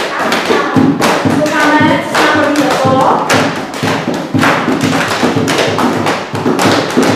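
A group's body percussion: a steady beat of thumps and taps, with several voices singing along in the first half and again near the end.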